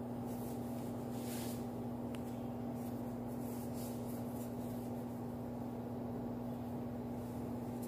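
A steady low mechanical or electrical hum at an even level, with a couple of faint, brief soft hisses over it.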